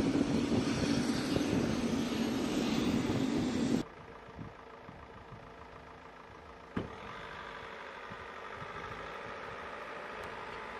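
Jet aircraft engine running on a flight line: a steady rumble and hum with a thin high whine slowly rising in pitch. It cuts off abruptly about four seconds in, leaving a much fainter steady background hum.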